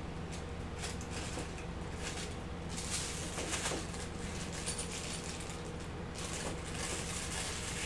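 A plastic piping bag crinkling and a silicone spatula scraping as thick churro dough is pushed into the bag, in irregular bursts, the busiest about three seconds in and again near the end. A steady low hum runs underneath.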